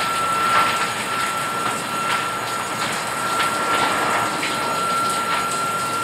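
Water running in a bathtub and splashing, a steady rushing hiss with a thin steady whistle through it and scattered brief splashes.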